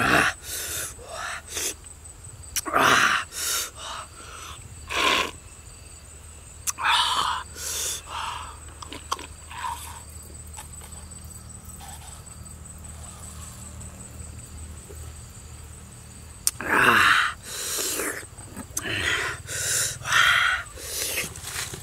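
A man's breathy gasps, hisses and wordless exclamations at very sour, chili-hot food, in short bursts. There is a quieter stretch in the middle, and the bursts pick up again near the end.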